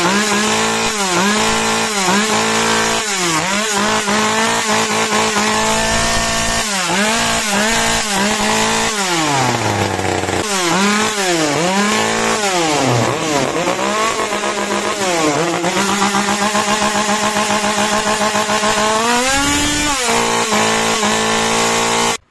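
ECHO CS-2511TS top-handle chainsaw's small two-stroke engine, run with no bar or chain fitted, revved up and down again and again on the throttle during carburetor adjustment. It then holds at high revs, rises once more, and cuts off suddenly near the end.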